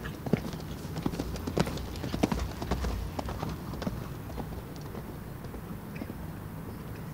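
Hoofbeats of a show-jumping horse moving across a sand arena, an irregular run of clicks and thuds that is loudest in the first half and thins out after about four seconds.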